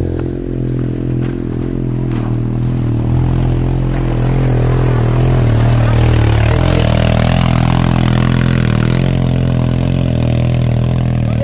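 Motorcycle engine running steadily as it is ridden over a rocky dirt track. About halfway through, a four-wheeled ATV's engine comes close alongside, and the sound gets somewhat louder.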